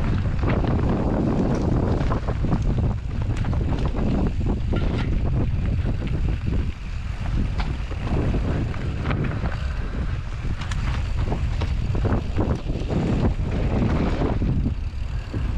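Rocky Mountain Slayer Carbon 50 mountain bike ridden down a rough trail: wind rushing over the GoPro microphone, with tyres rolling over the ground and frequent short clicks and rattles from the bike.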